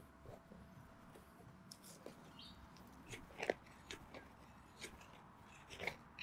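Scattered crunches and scrapes of soil and grass being dug and raked through in a small hole with gloved hands and a hand digger, the loudest about halfway through and again near the end.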